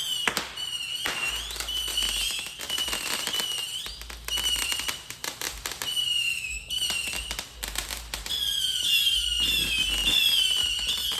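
Consumer fireworks going off in quick succession: a long run of sharp bangs and crackles over a continuous high-pitched whine.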